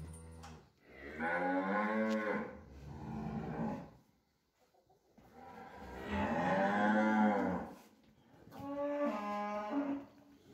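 Cattle mooing: three long calls, the first two about three seconds each and the third shorter near the end.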